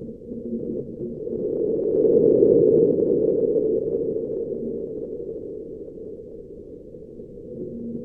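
Seismometer recording of InSight's first marsquake on Mars, sped up into audible sound: a low hiss of ground vibration that swells from about a second in, peaks around two to three seconds and slowly fades.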